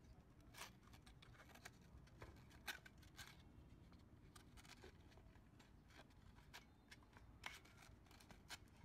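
Faint rustling and scraping of a cloth-backed sanding belt as it is flexed and slid by hand onto a belt grinder's frame and bearing roller, with a few sharp crackles of the stiff abrasive.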